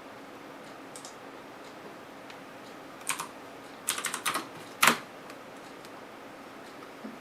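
Scattered computer keystrokes and clicks: a pair, then a quick cluster of taps and one louder click about five seconds in, over a faint steady background hum.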